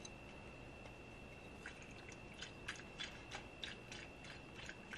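Quiet room with a faint steady high-pitched whine and soft, irregular small clicks, about three a second, starting about a second and a half in.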